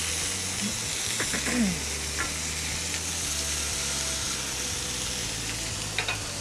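Tied beef fillet searing in hot oil in a frying pan: a steady sizzle as it is turned with tongs, with a few light clicks about a second in and near the end.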